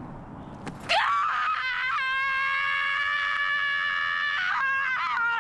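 A woman screaming: one long, high scream that starts about a second in and is held for over four seconds, wavering and dipping slightly in pitch near the end.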